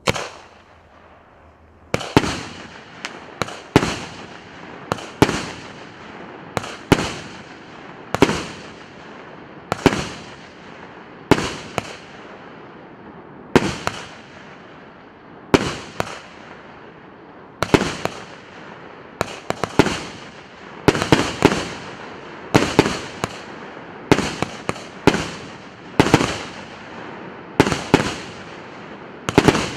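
An 88-shot, 1.2-inch consumer fireworks cake firing shot after shot. Each sharp bang trails off, coming roughly every second and a half, sometimes two in quick succession. There is a first bang, a short pause, then a steady run of shots.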